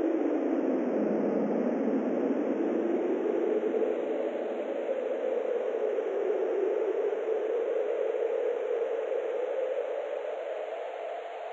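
A steady rushing, wind-like noise with no distinct tones. It starts abruptly and slowly dips, then rises again in pitch.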